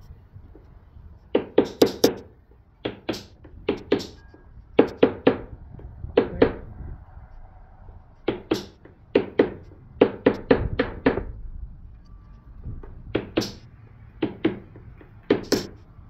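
Hand tools knocking together in quick clusters of two to five sharp taps, repeated about a dozen times, as a wire brush and a scraper are worked at a battery terminal.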